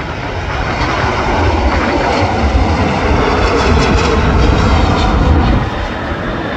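Jet engine noise from a Boeing 747-8 freighter's four GEnx turbofans as the aircraft flares and touches down, growing louder and then easing off near the end, with wind buffeting the microphone.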